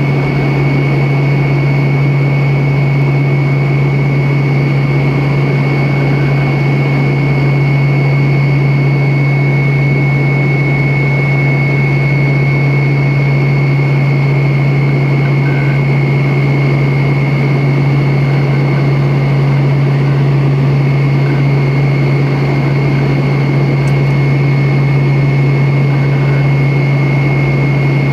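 Steady in-flight cabin noise of a Tupolev Tu-134B-3 airliner, its rear-mounted Soloviev D-30 turbofans running steadily: a deep hum under a rush of engine and airflow noise, with a thin, steady high-pitched whine.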